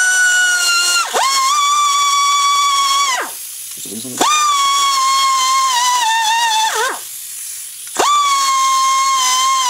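Kobalt air die grinder run in four bursts, each spinning up to a high whine with air hiss and winding down as the trigger is released. The pitch sags and wavers a little during the longer runs.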